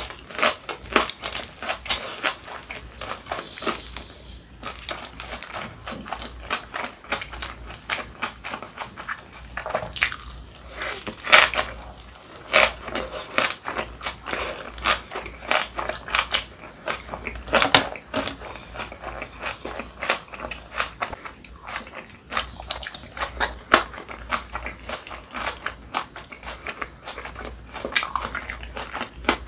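Close-up crunchy chewing of spicy kimchi, a dense run of crisp crunches one after another.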